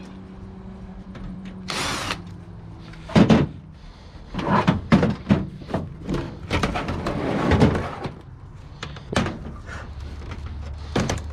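An old computer tower's sheet-metal case being opened: knocks, clunks and scraping as the side panel is worked loose and slid off, with a brief power-driver whirr about two seconds in.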